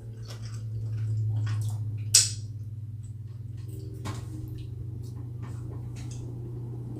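Electric fan running with a steady low hum, loud in the small room, with a few light clicks and taps over it and one sharp click about two seconds in.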